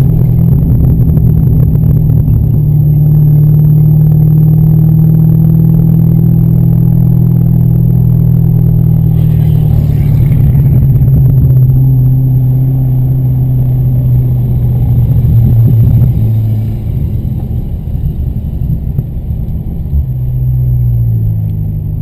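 Corvette Z06's 7.0-litre LS7 V8 heard from inside the cabin, running at full speed with a steady high note. About sixteen seconds in it gets quieter and its pitch drops and wavers as the car slows.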